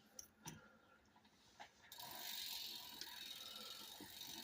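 Bicycle rear freewheel ratcheting as the wheel spins: a few separate clicks, then from about two seconds in a steady fast buzz of the pawls. The freewheel is working, turning the wheel without turning the pedals (no ghost pedaling).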